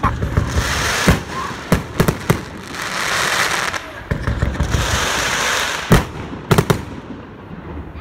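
Firework display: a run of sharp bangs as aerial shells burst, the loudest about six seconds in, with a dense crackling hiss between the bangs.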